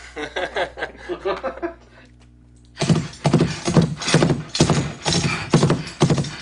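Foley horse track played back: a steady run of hoofbeats with bridle jingle, starting about three seconds in after a moment of speech.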